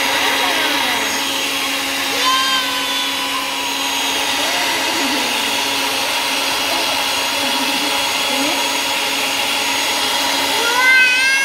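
Countertop blender running steadily, blending a fruit and milk smoothie. A toddler's high-pitched voice squeals briefly about two seconds in and again near the end.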